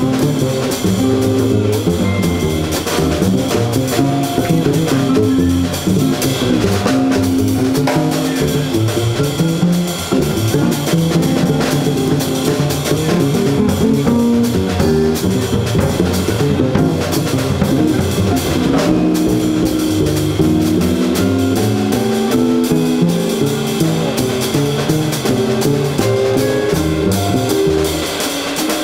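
Live small-group jazz: an upright double bass plucked in a run of low notes over a drum kit.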